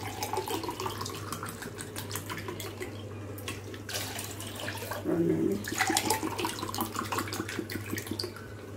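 Water poured from a plastic bottle into a drinking glass, the pitch rising as the glass fills. About four seconds in it is emptied with a splash into a steel pot of water and lemon slices, then the glass is filled again.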